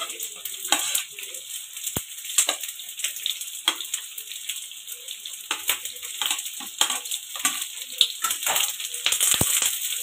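Hot oil sizzling and crackling in a frying pan as chopped onion is tipped in from a plate, with sharp pops and clicks scattered throughout over a steady hiss.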